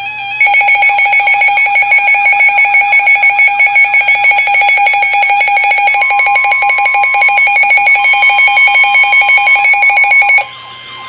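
Weather alert radio's alarm going off: a loud, rapidly pulsing high two-tone beep that cuts off suddenly near the end. About six seconds in, a steady single tone joins it, the NOAA Weather Radio warning alarm tone.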